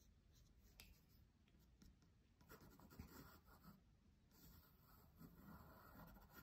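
Faint scratching of a sketch pencil drawing on watercolour paper, in two longer strokes in the second half, with a few light ticks before them.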